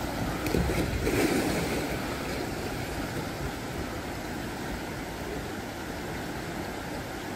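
Floodwater rushing and splashing. It is louder and more churning in the first couple of seconds, then settles to a steady rush.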